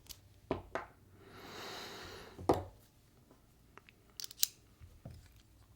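Small clicks and taps from handling a folding knife, its parts and tools, with a soft scraping rustle lasting about a second in the middle and a sharper click about two and a half seconds in.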